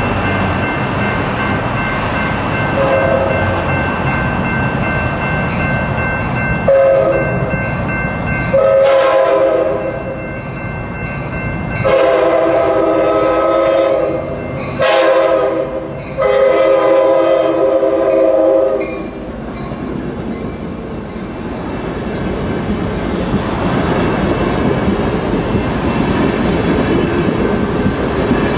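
An Amtrak Surfliner's F59PHI diesel locomotive sounds its multi-chime K5LA air horn in the grade-crossing pattern, a brief toot and then long, long, short, long blasts. After that, the train rumbles past close by, its wheels clicking over the track, growing louder toward the end.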